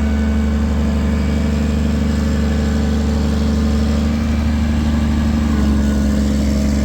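Heavy diesel engine running steadily at a constant speed, with a deep, even drone.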